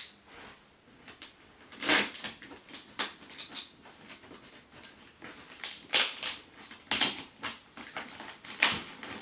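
Irregular knocks, scrapes and rustles of a cardboard box and the tripod stands inside it being handled and pulled at, with sharper knocks about 2, 6, 7 and 9 seconds in.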